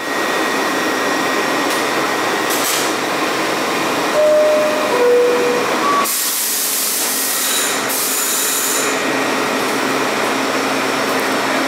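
Steady hum and hiss of a stationary R62A subway train's onboard equipment, with a two-tone descending door chime about four seconds in, signalling the doors are about to close. About six seconds in the low hum drops away and a brighter hiss takes over.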